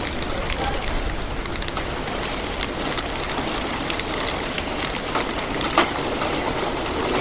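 Heavy rain falling steadily: an even hiss with scattered drip ticks and one sharper tap about six seconds in.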